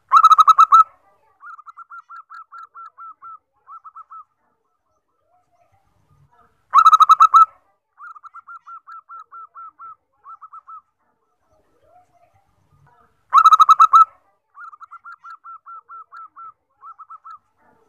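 Zebra dove (perkutut) singing three song phrases about six and a half seconds apart, each a loud opening coo followed by a run of quick, softer rolling notes.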